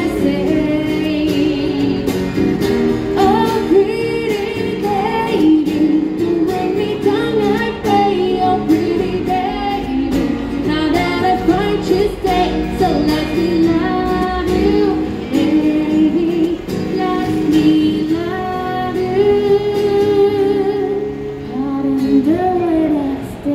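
A woman singing a melody into a microphone, accompanied by her own acoustic guitar, both played through a small portable amplifier.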